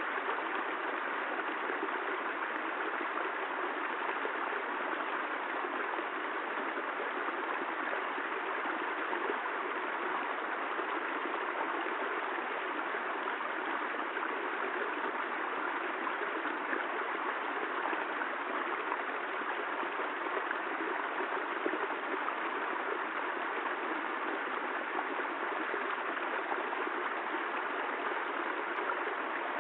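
Steady rain: an even, unbroken hiss with no thunder or single drops standing out.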